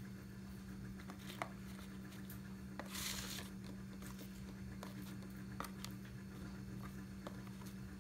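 Faint handling noises of fingers working damp substrate and plastic deli cups: a few light clicks and taps, and a short rustle about three seconds in, over a steady low hum.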